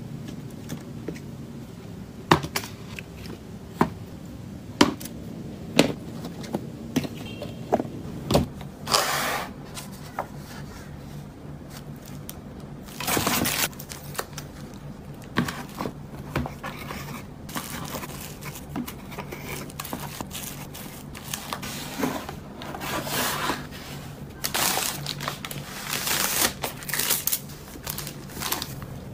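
Hands packing an order: a series of sharp clicks and knocks over the first several seconds, then bursts of crinkling and rustling from cellophane bags and a plastic mailer, over a steady low hum.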